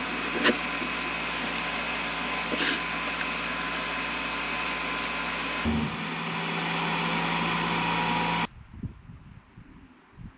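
Water running into a stainless steel kitchen sink during dishwashing, with a steady hum alongside and a couple of clinks of dishes. It cuts off abruptly about eight and a half seconds in.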